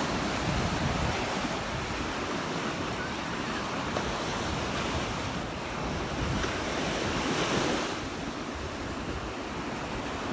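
Surf washing onto the beach, with a wave breaking and rushing up the sand about halfway through. Wind buffets the microphone throughout.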